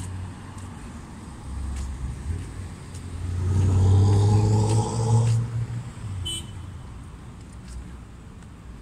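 A car passing close by: its engine and tyre noise swell to a peak about four seconds in, and the pitch falls as it goes away. Under it runs a steady low rumble.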